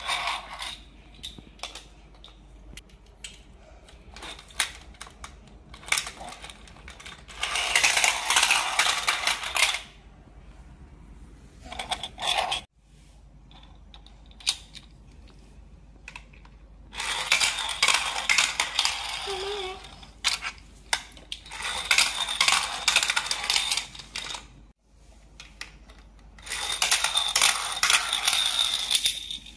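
Small plastic toy cars clattering as they roll down a plastic zigzag ramp track and out onto a wooden board. The rattling comes in about four runs of two to three seconds each, with single clicks between them as the cars are set down.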